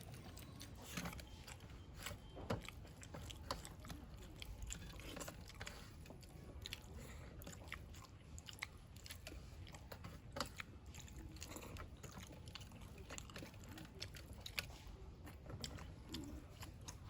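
People eating egg curry with rice: faint chewing and mouth sounds with many scattered small clicks and ticks.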